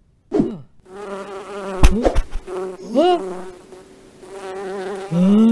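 Cartoon bees buzzing in a steady drone as they swarm out of a fallen beehive. There is a sharp knock about two seconds in, and a few brief sliding tones.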